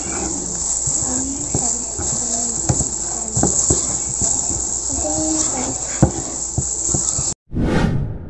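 Wire whisk stirring cake batter in a bowl, clicking irregularly against the sides over a steady high-pitched chirring. Near the end the sound cuts off and a single loud drum hit rings out and fades.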